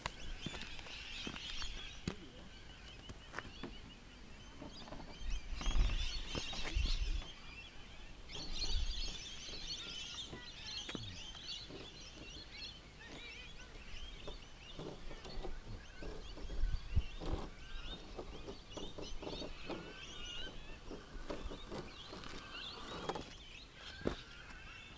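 Birds chirping and calling, many short high notes overlapping, with a few brief low thumps.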